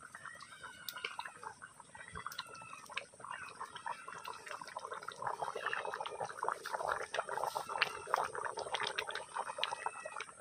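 Chicken curry bubbling and popping as it boils in an iron kadai. There are many small wet pops, growing busier from about halfway through.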